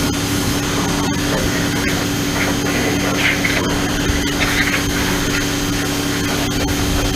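Portland electric pressure washer's motor and pump running steadily with a hum, its water jet hissing as it sprays, with louder splashing around the middle.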